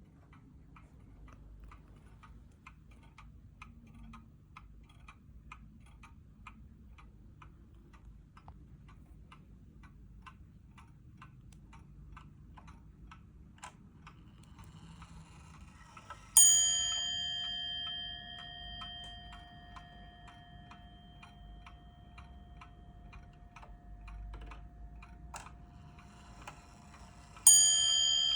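Vintage Dutch FHS Atlas pendulum wall clock ticking steadily at about two ticks a second. Past the halfway point its top-mounted bell is struck once and rings on for several seconds. A second bell strike comes near the end.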